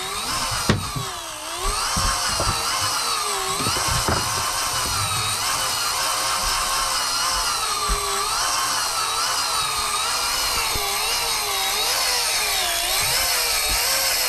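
Electric deep-drop fishing reel winding in line under heavy load, its motor whine dipping and rising in pitch again and again as the fish on the line fights and the rod shakes. A couple of short knocks come in the first second.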